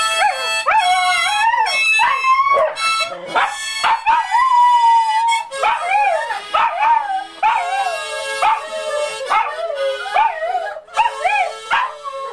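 A Shetland sheepdog howling along to a harmonica, its wavering howls sliding up and down over the harmonica's notes. There is a long held howl about four seconds in, and a steady harmonica note runs beneath the howls from about halfway.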